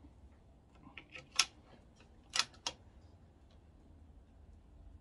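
A cluster of light clicks about a second in, one sharper click, then two quick clicks about two and a half seconds in: the magazine of a CZ 457 bolt-action rimfire rifle being reseated after a magazine jam and the bolt worked to chamber a round.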